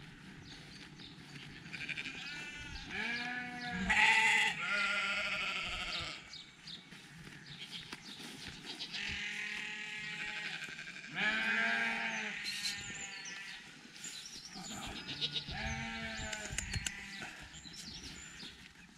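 Sheep bleating: about five long, wavering calls spread a few seconds apart, the loudest about four and eleven seconds in.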